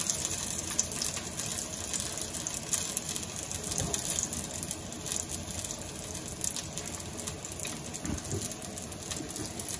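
Egg-battered chile relleno frying in a pan of hot avocado oil: a steady sizzle full of fine crackling, with a couple of soft knocks about four and eight seconds in.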